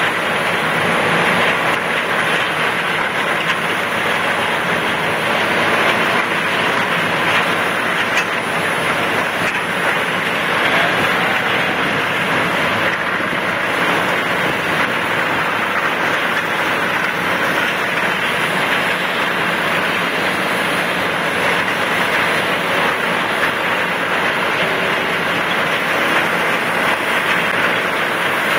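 Bandit Beast 3680 horizontal grinder running under load as it grinds brush: a steady, dense mechanical noise without let-up.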